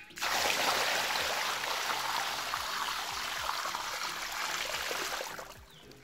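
Water pouring and splashing into a shallow granite rock pool. It starts suddenly as a steady rush and dies away about five seconds in.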